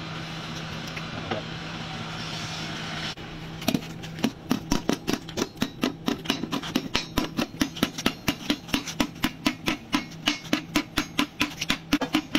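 A steady mechanical hum and hiss that breaks off about three seconds in, then a hammer beating a red-hot steel disc on an iron anvil block, rapid even metal-on-metal strikes several times a second: an iron wok being hand-forged.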